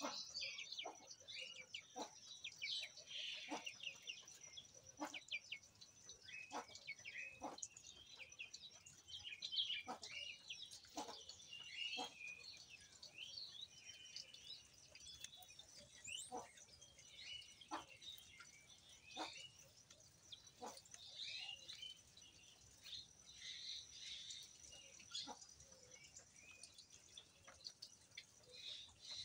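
Birds chirping and calling in the background over a steady high-pitched whine, with soft irregular clicks about every second or so.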